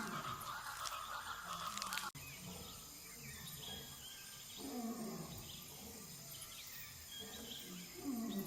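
Low animal calls that fall in pitch, one about halfway through and another near the end.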